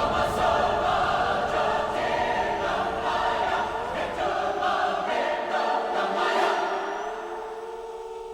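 Music: a choir singing long held chords, with the bass thinning out near the end.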